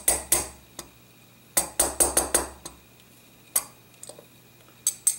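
A brass-faced gunsmith's hammer gives sharp metallic taps, driving out the trigger guard pin of an old steel revolver frame. There are two taps at the start, then a quick run of five about a second and a half in, then single taps around three and a half seconds and near the end.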